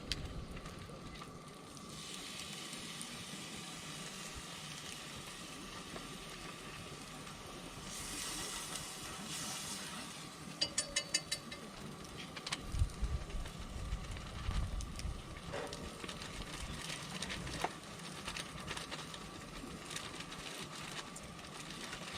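Campfire burning: a steady hiss from the burning wood with scattered crackles and pops. About eleven seconds in there is a quick run of clicks.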